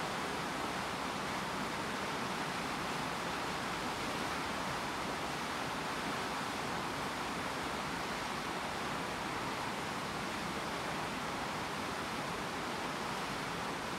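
Steady rushing noise of a coastal ship under way, from water and wind running past the bow, even and unchanging.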